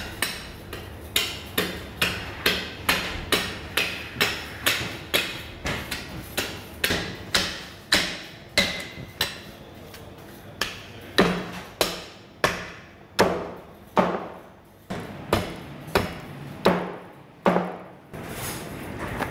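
Meat cleaver chopping through a whole lamb's ribcage onto a cutting board: a steady run of sharp chops, about two a second. After a short pause near the middle the strikes come back heavier and a little slower.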